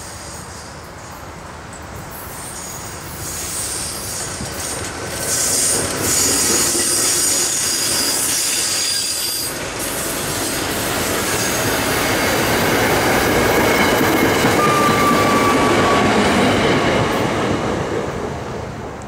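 SEPTA Silverliner II and IV electric multiple-unit commuter train passing close by, its running noise building as it approaches and falling off as it clears. High-pitched wheel squeal comes in about a third of the way through.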